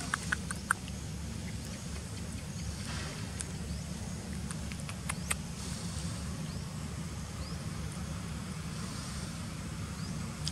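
Steady low outdoor rumble with a few sharp clicks about half a second in and again around five seconds in, and faint high chirps now and then.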